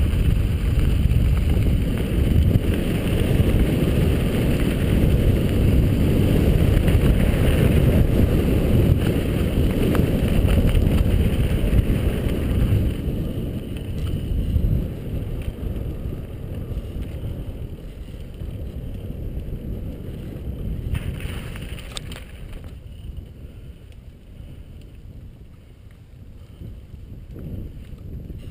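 Wind buffeting a helmet-mounted camera's microphone, together with mountain-bike tyres rolling fast over a gravel road. About halfway through, the rumble eases as the bike slows onto smooth concrete path, and it grows much quieter near the end.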